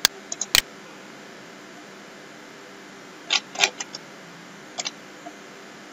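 Computer mouse and keyboard clicks over a steady low hiss: a couple of clicks near the start, a quick run of clicks about three and a half seconds in, and a single click near the end.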